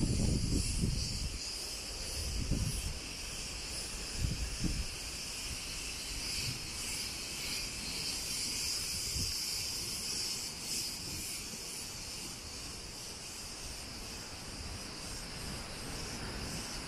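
Cicadas buzzing steadily in the trees, a shrill, slightly pulsing drone. In the first few seconds a few low gusts of wind rumble on the microphone.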